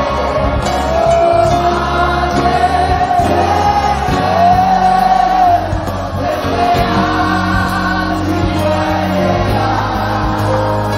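Gospel worship music: voices singing long, gliding held notes over an instrumental accompaniment with a steady bass line.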